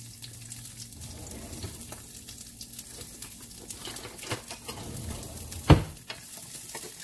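Chopped onion sizzling in a little hot oil in a nonstick sauté pan, with one loud knock near the end as a wooden spatula strikes the pan.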